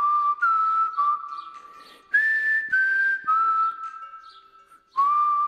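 Background music with a whistled melody of held, stepping notes over a light strummed accompaniment. It fades to a short pause and the whistling starts again near the end.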